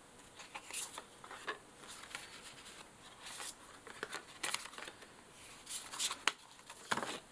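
Stiff Pantone colour postcards being flipped through and shuffled by hand: a string of faint, short paper rustles and light taps of card on card.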